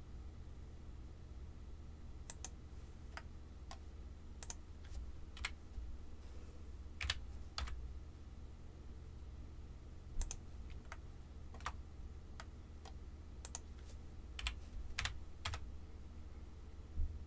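Computer keyboard keys and mouse buttons clicking: single, irregularly spaced clicks, about twenty of them, a few louder than the rest, over a faint steady low hum.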